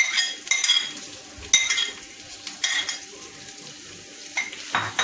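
A metal spoon clinking and scraping against a ceramic plate several times, in short ringing strokes, as sliced green capsicum is pushed off into a frying pan. A faint sizzle of the food frying in the pan runs underneath.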